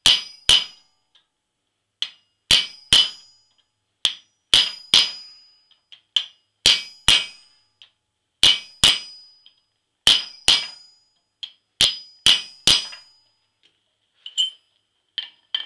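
Hammer striking a chisel on a steel cutoff plate set in the anvil's hardy hole, in groups of two or three blows about every two seconds, each with a short metallic ring. Lighter, scattered taps near the end.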